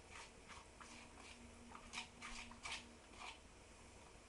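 Faint, short scrapes and taps of grated cheese being scraped out of a plastic bowl into a saucepan of sauce, about half a dozen soft sounds spread through a near-silent moment.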